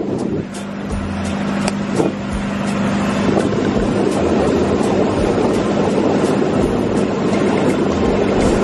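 Engine of a motorised outrigger boat running steadily under way: a constant hum under a loud rush of wind and water, which grows stronger a few seconds in.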